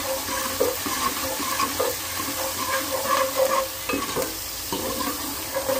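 Sliced onions sizzling in hot oil as they are fried to brown for a sambar tempering, stirred with a steel spoon that scrapes and knocks against the pan a few times.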